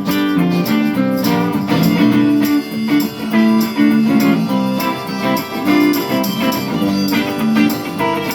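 Live band playing an instrumental passage between sung lines, led by guitars over a steady beat.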